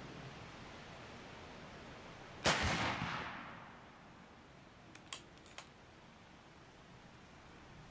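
A single gunshot from a Mauser M1871 11 mm black-powder single-shot rifle, about two and a half seconds in, its report echoing away over about a second and a half. A few light metallic clicks follow a couple of seconds later.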